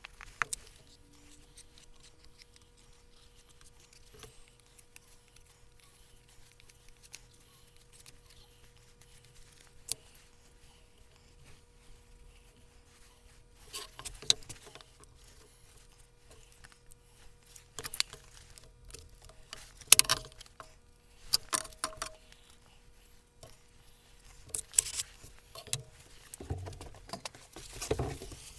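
Scattered clicks and knocks from glued plywood pattern pieces being set together on a steel workbench and clamped with plastic spring clamps and bar clamps, the loudest about two thirds of the way through. The first half is quiet apart from a faint steady hum.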